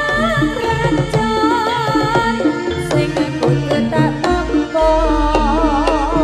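Live Javanese jaranan music from a gamelan ensemble: hand drums beating a quick rhythm and struck metallophone and gong tones under a high melody line that wavers with a wide vibrato.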